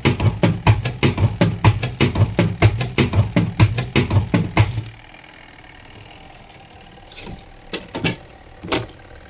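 Marq washing machine knocking rapidly and rhythmically, about five knocks a second over a low motor hum, like drumming. The knocking stops about five seconds in, leaving a low hum and a few separate clicks.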